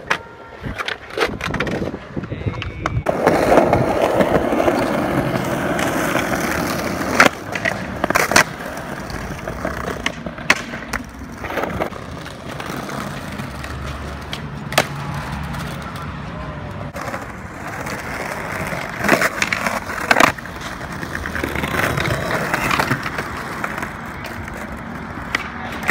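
Skateboard wheels rolling over concrete and brick paving, with several sharp clacks as the board is popped and lands.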